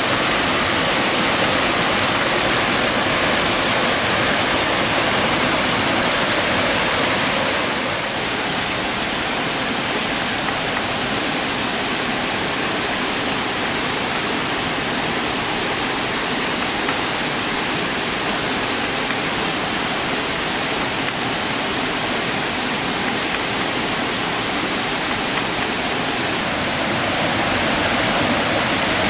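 Steady rush of water from a rocky stream tumbling over small cascades, an even hiss. It turns a little quieter about eight seconds in and comes back up near the end.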